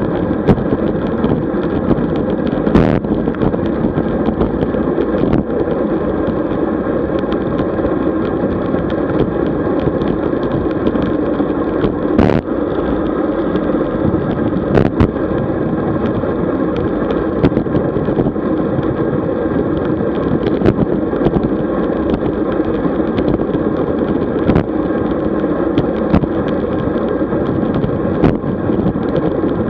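Steady rush of wind and road noise picked up by a camera on a moving road bicycle, with a few sharp clicks scattered through.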